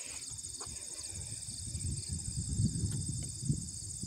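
Insects chirping steadily in a regular pulsing pattern from the roadside grass, over a low rumble that swells about two to three seconds in.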